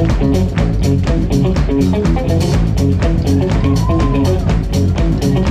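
Live band playing: electric guitar and electric bass over a drum kit keeping a steady beat, with the bass line moving underneath.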